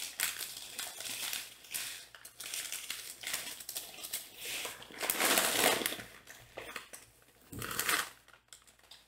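Paper rustling and crinkling as hands dig through crinkle-cut paper shred in a box and lift out a white-wrapped package, in uneven bursts with the loudest rustle about five seconds in.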